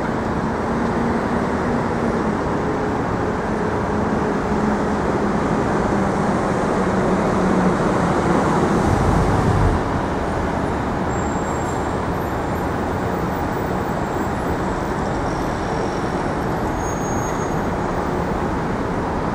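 Street traffic noise from passing road vehicles, with an engine hum sinking slightly in pitch over the first eight seconds and a low rumble about nine seconds in, after which the traffic is a little quieter.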